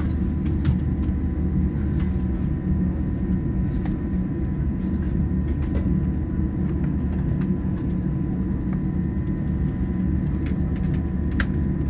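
Steady low cabin rumble inside a Boeing 787-9 Dreamliner taxiing after landing, with a faint steady high tone over it.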